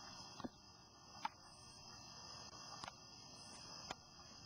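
Faint, steady chirping of crickets, with four short, sharp knocks spread through it.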